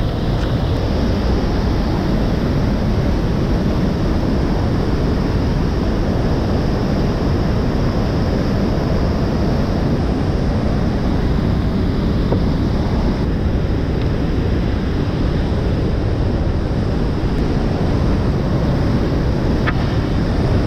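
Loud, steady rush of river whitewater pouring through a big rapid and over a waterfall.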